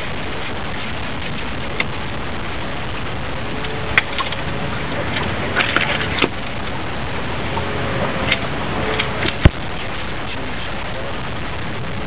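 Steady rushing noise of wind and rain, broken by a handful of sharp knocks, the loudest late on.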